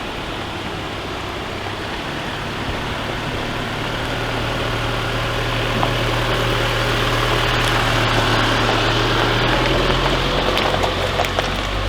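Chevrolet Colorado ZR2 pickup driving on a rough gravel spur road: a steady low engine hum with tyre and road noise. Scattered light ticks and knocks come in the second half.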